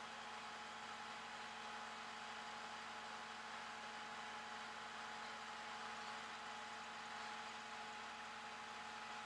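Truck engine idling steadily, an even hum with a few faint steady tones over it.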